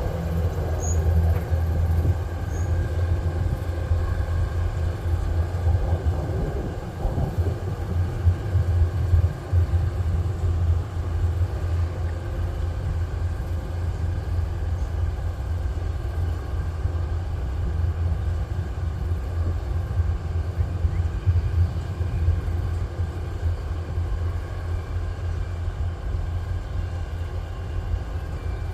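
Kubota rice combine harvester running steadily under load, a continuous low engine drone with its machinery.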